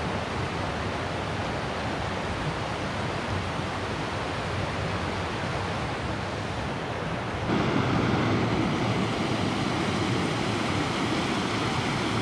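Continuous rushing noise of moving air and water. About seven and a half seconds in it steps up to the louder, steady rush of a small waterfall cascading over rocks.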